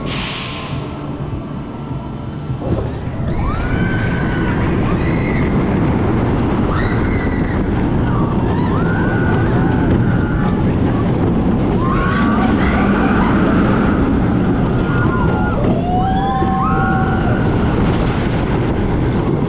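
Vekoma Boomerang roller coaster train running the track: a steady heavy rumble of wheels and rushing air that swells about three seconds in. Riders' screams rise over it again and again.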